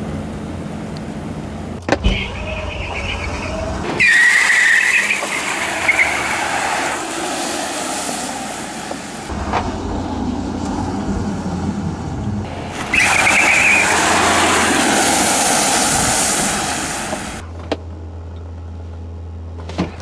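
Rimac Nevera electric hypercar heard from inside its cabin: a steady low hum, with two loud spells of hissing and a high squeal about four and thirteen seconds in.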